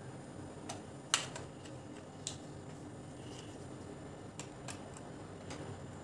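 Scattered small clicks and taps of hands working a power wire inside an opened vacuum cleaner's plastic housing, about six in all, the sharpest about a second in, over faint steady background noise.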